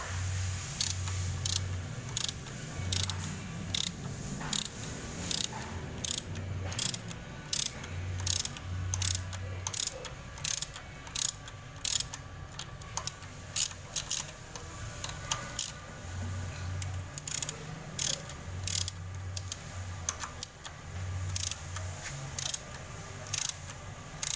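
Hand tools working on car engine parts during a teardown: irregular sharp metallic clicks and clinks, several a second, with a low hum that comes and goes.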